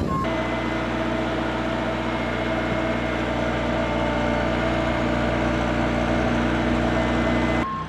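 An engine idling steadily: a constant hum with several fixed pitches and no change in speed, cutting off abruptly near the end.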